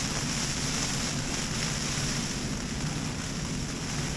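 Storm wind and driving rain beating on a nylon tent's rainfly, heard from inside the tent as a steady rush of noise, with gusts buffeting the microphone.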